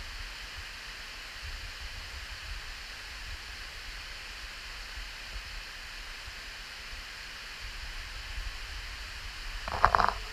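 Steady rushing of a waterfall pouring down a narrow rock canyon. A short, louder sound breaks in near the end.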